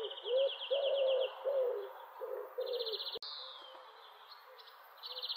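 Partridge calling: a fast, rasping trill repeated three times, over lower, cooing notes in the first half. There is a single sharp click a little after three seconds in.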